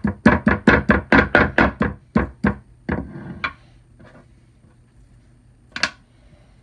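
A knife chopping briskly on a cutting board: an even run of sharp knocks, about four a second, that stops about two and a half seconds in. A few faint knocks follow, then one sharp knock near the end.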